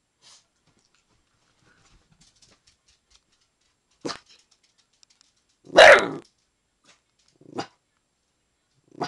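Young dog giving short alert barks at someone outside the yard: three barks about a second and a half apart, the middle one the loudest.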